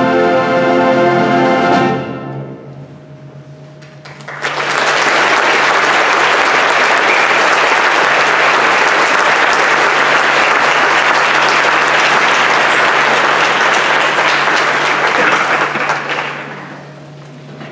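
A concert band's final held chord, led by brass, cuts off about two seconds in and rings briefly in the hall. After a short pause the audience applauds for about twelve seconds, fading out near the end.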